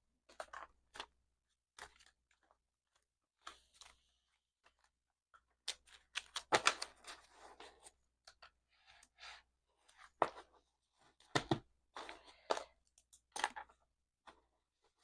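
Paper banknotes being counted by hand: a stack of fairly new bills flicked and shuffled in irregular short crisp snaps and rustles, quickening into runs of flicks about six seconds in and again from about ten seconds.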